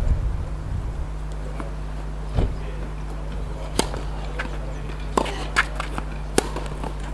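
Tennis rally: sharp pops of racket strings striking the ball and of the ball bouncing on the court, about five of them, roughly a second apart.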